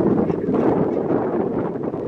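Wind buffeting the microphone: a loud, steady rumble.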